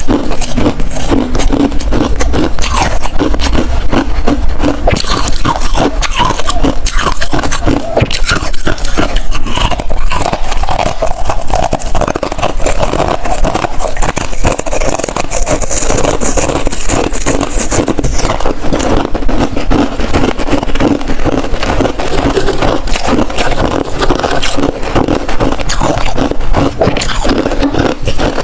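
Close-miked crunching and chewing of hard freezer ice: dense, irregular crunches and crackles that keep up without a pause.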